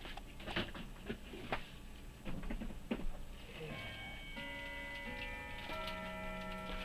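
A few light clicks and taps of small objects being handled and set down. From about halfway, several sustained musical tones of different pitches come in one after another and hold.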